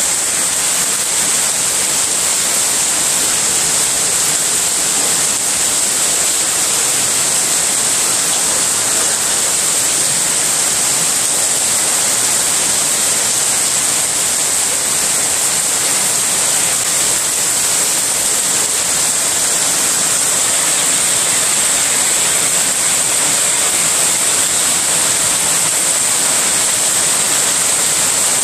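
Heavy rain pouring down in a steady downpour, an even, unbroken hiss.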